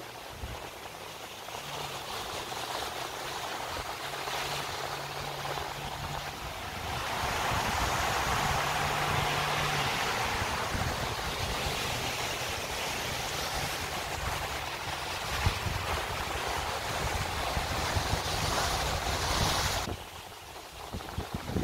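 Ocean surf breaking and washing over sandstone rocks at the foot of a cliff, mixed with wind buffeting the microphone. The wash swells louder about seven seconds in and drops away suddenly near the end.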